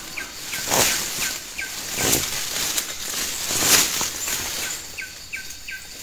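A small bird chirping in short, repeated notes, under four loud rustling swishes of leaves and brush.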